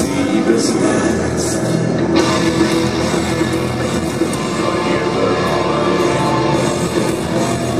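Heavy rock music with electric guitar, dense and steady.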